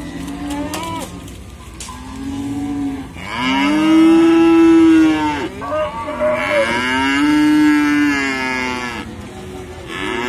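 Cattle mooing repeatedly: several long moos, each rising and then falling in pitch, the loudest two about three to five and a half seconds in and about six and a half to nine seconds in, with shorter, fainter ones between.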